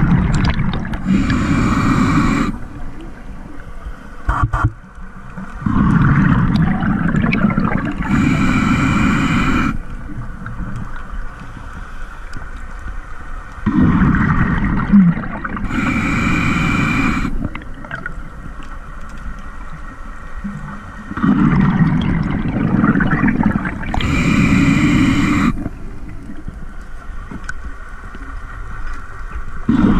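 Scuba regulator breathing underwater: a hissing inhale through the regulator every seven to eight seconds, each alternating with a low burbling rush of exhaled bubbles, four breaths in all.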